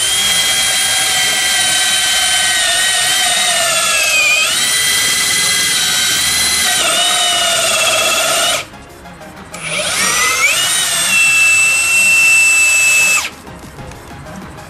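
HiKOKI D3613DA 36 V cordless D-handle drill boring into a wooden sill timber with an auger bit. Its motor whine dips in pitch twice as the bit bites under load. It stops for about a second, then spins up again with a rising whine and runs at a steady pitch until it cuts off near the end.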